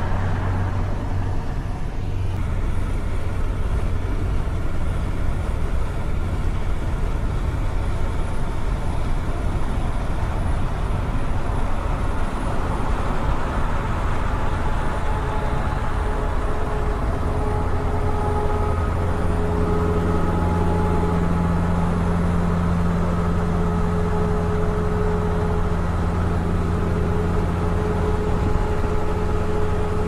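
Scania 164L 580 truck's V8 engine running on an open-pipe exhaust while cruising on the highway, a steady deep drone over road and tyre noise. About halfway through the engine note grows stronger and fuller.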